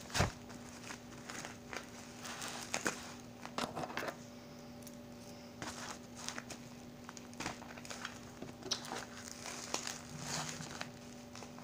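Bubble wrap around a parcel of cassette tapes crinkling and crackling in irregular bursts as it is handled and turned over, with a sharp knock just after the start. A faint steady hum runs underneath.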